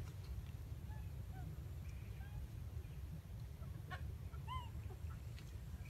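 Scattered short high animal chirps and squeaks over a steady low rumble, with one arched call about four and a half seconds in.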